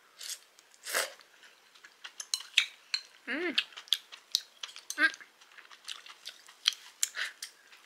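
Cutlery clicking and clinking against dishes in scattered sharp taps during a meal, with a short hummed voice sound about three seconds in and another about five seconds in.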